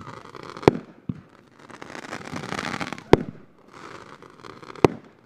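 Consumer aerial fireworks going off: three sharp bangs, the first less than a second in, the second about three seconds in and the third near the end, with a hissing rush building before the second bang.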